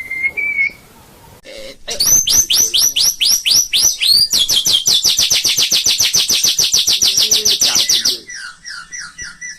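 White-rumped shama (murai batu) singing. A brief whistle is followed, about two seconds in, by a run of quick down-slurred high whistles at about four a second. These speed into a loud, very fast trill of roughly nine notes a second lasting nearly four seconds, which gives way to softer, lower falling notes near the end.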